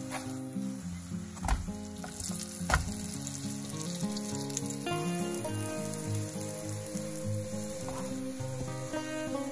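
Potato calzoni sizzling as they fry in olive oil in a nonstick pan. A plastic spatula turns them over, with two sharp knocks about a second and a half and nearly three seconds in.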